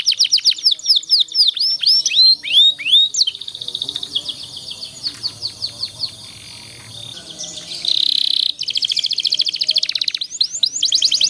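Canary singing: fast rolling trills of rapidly repeated notes and downward-sweeping whistles, a long held high note in the middle, a short harsh note about eight seconds in, then fast trilling again.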